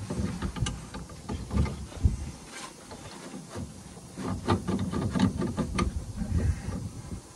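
Irregular metal clinks, knocks and rattles from hand work on a truck's leaf-spring eye and hanger, with low thuds between them.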